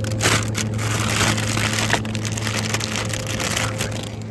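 Close crackling, rustling noise, like plastic produce bags and cardboard brushing against the phone's microphone, over a steady low hum; the crackling eases near the end.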